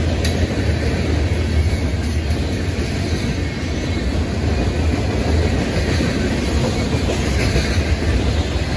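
Freight train of covered hopper cars rolling past close by: a steady, loud noise of steel wheels running over the rails.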